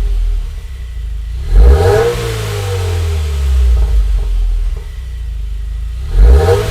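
2015+ Subaru WRX's turbocharged 2.0-litre flat-four, breathing through an aftermarket exhaust, idling and blipped twice with the throttle, about four and a half seconds apart; each rev climbs sharply and falls back.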